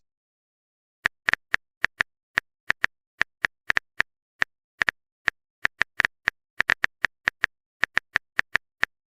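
Phone keyboard tapping sound effect: a run of short, identical clicks at an uneven pace, about four a second, starting about a second in, as a text message is typed out.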